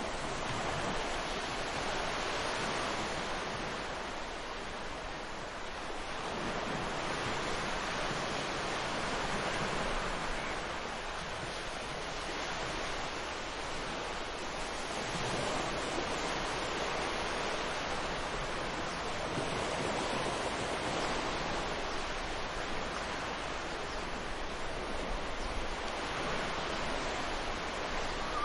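Ocean waves breaking and washing ashore, a steady rush of surf that swells and eases every few seconds.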